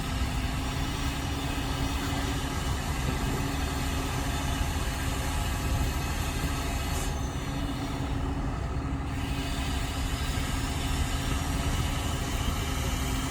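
Heavy diesel engines of an excavator and dump truck running steadily with a constant hum while the excavator loads soil into the truck.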